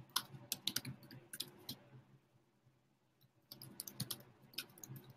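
Typing on a computer keyboard: quick, irregular key clicks that stop for about a second and a half midway, then start again.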